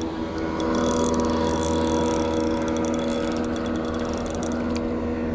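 Motorboat engine running steadily, a constant hum with several held tones over a low drone.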